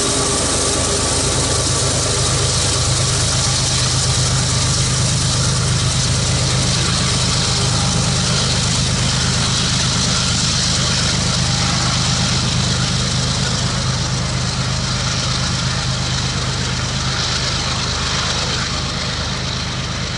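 Diesel-electric freight locomotive running under power at the back of a loaded coal train, a steady low engine drone with rolling noise over the top, fading gradually in the last several seconds as it moves away.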